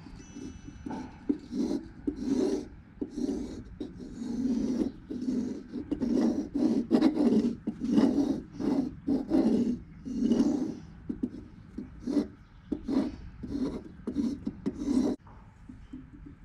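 Scratching, rubbing strokes of a pencil and dividers on the face of a rough wooden bowl blank as it is marked out, irregular and about two a second, stopping about a second before the end.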